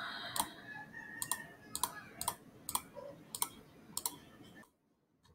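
Computer mouse clicking, about eight sharp clicks at roughly two a second, then the sound cuts off to silence near the end.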